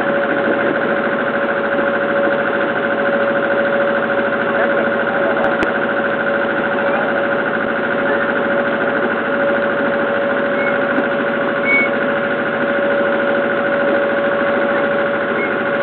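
Small river ferry boat's engine running steadily under way, a constant drone with an even, unchanging whine.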